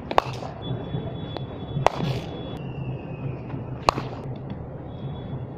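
Leather cricket ball struck by a willow cricket bat three times, sharp cracks about two seconds apart, over a steady low hum.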